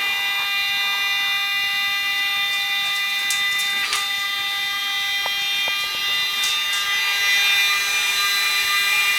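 Stepper motors of a homemade CNC mill driving its axes through five-start Acme lead screws on a first test run: a steady, high-pitched whine of several fixed tones, with a few light clicks around the middle.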